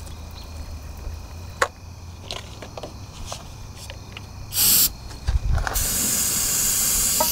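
Hand trigger spray bottle squirting a priming spray into an airplane engine to help it start: one short hiss about four and a half seconds in, then a longer steady hiss that cuts off suddenly near the end.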